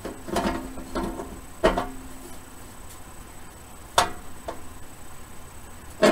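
A speaker's frame knocking and scraping against the inside of a Hallicrafters S-38's metal cabinet as it is set in place and pressed down. There are about half a dozen knocks, each followed by a short ringing of the cabinet. The sharpest come near the middle and at the very end.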